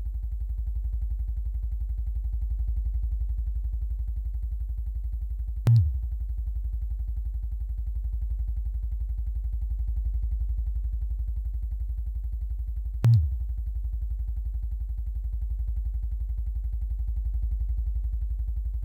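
Vibrator buzzing steadily with a low hum, broken twice by a brief louder jolt, about six and thirteen seconds in.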